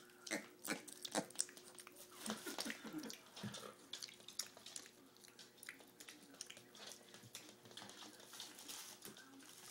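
Wild hog piglet eating wet grits: faint irregular wet smacks and clicks of its mouth in the food, thinning out after about three seconds into lighter taps as its small hooves walk on a wooden floor.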